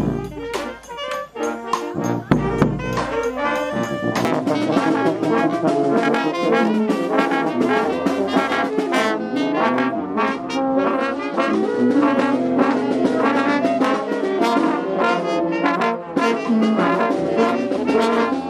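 Brass street band playing a tune, with the sound of horns such as trombones and trumpets; the music fills out about four seconds in and carries on at full strength.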